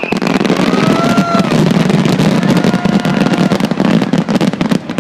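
Fireworks going off in a dense, rapid barrage of bangs and crackles that stops abruptly near the end.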